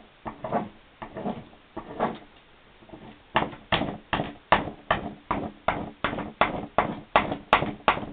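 A wax candle rubbed back and forth over a glossy magazine page, waxing the paper. The strokes are slow and uneven at first, then after a short pause about three seconds in they become a steady rhythm of about two and a half strokes a second.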